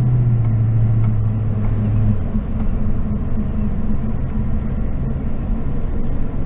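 Engine and road noise inside the cab of a moving truck: a steady low hum that drops away about two seconds in, leaving a rougher continuous rumble.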